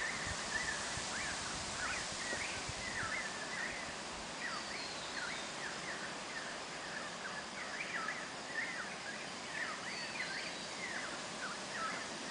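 Birds chattering in a continuous stream of short, quick chirps, with a few thin high whistles now and then.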